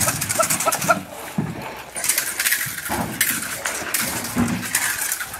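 Commotion of a working dog doing bite work on a decoy: scuffling and rustling throughout, with a few short high whines in the first second.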